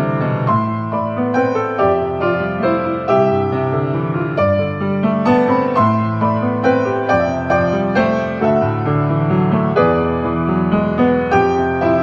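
Background solo piano instrumental music, a steady stream of struck notes.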